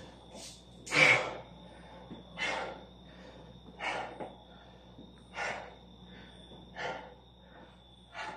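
A man breathing hard, winded from Navy SEAL burpees: heavy exhales about every second and a half, the first, about a second in, the loudest.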